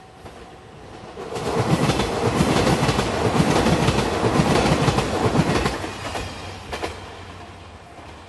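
A JR Shikoku 2700-series diesel limited express train passing over a level crossing, its wheels clacking rhythmically over the rail joints, building up about a second in and fading out after about six seconds. The level-crossing warning bell rings at the start and again near the end.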